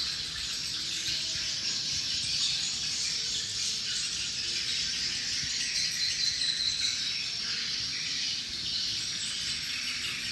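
A large flock of edible-nest swiftlets giving a dense, continuous high-pitched twittering chorus as they swarm to enter their roost.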